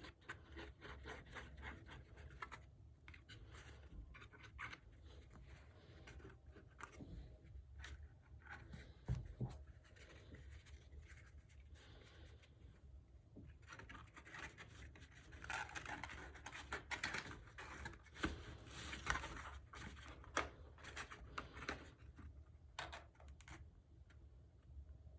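Faint rustling and scratching of cardstock being handled, with scattered small clicks, as glued cardstock pieces are pressed and held together.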